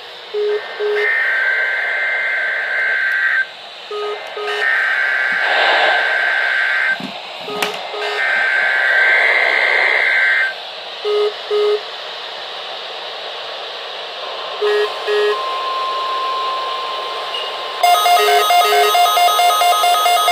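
NOAA Weather Radio EAS weekly test: three bursts of the SAME header data, a harsh digital screech, each about two and a half seconds with short gaps between, over receiver hiss. A steady tone follows about three-quarters of the way through, then a rapidly pulsing alert tone near the end.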